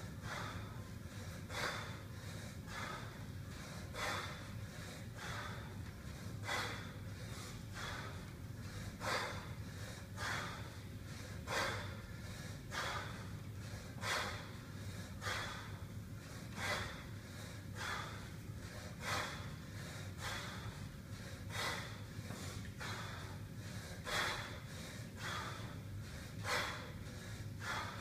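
A man breathing hard through kettlebell cleans: a sharp, forceful exhale about every one and a quarter seconds, with lighter breaths between, over a steady low hum.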